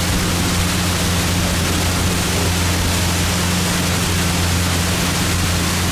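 An engine running steadily with a low hum under a loud, constant rushing noise.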